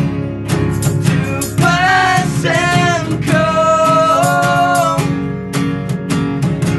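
Live acoustic band: a hollow-body electric guitar and a steel-string acoustic guitar strum together over a steady beat struck on a floor tom. Male vocals hold long sung notes from about a second and a half in until about five seconds in.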